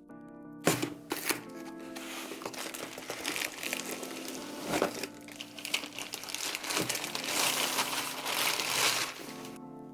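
Packaging crinkling and rustling, with a few sharp clicks along the way, over soft background music. The crinkling starts about a second in and stops shortly before the end.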